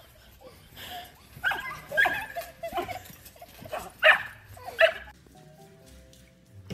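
A dog barking: a handful of short, sharp barks, the loudest about two, four and five seconds in.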